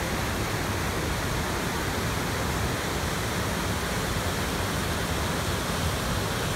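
Steady rush of a river waterfall and rapids, white water pouring over boulders into pools.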